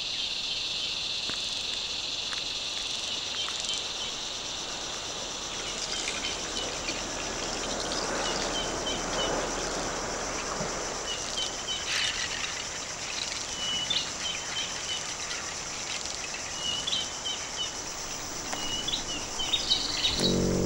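Tropical forest ambience of insects droning at a high, steady pitch. One drone fades out after the first few seconds while a thinner, higher one carries on. From about halfway, short high chirps repeat every second or so.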